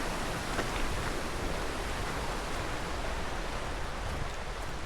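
A steady, even rushing noise, like flowing water.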